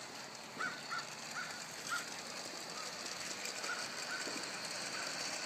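A small bird chirping in short calls, half a dozen or so, over a steady outdoor hiss.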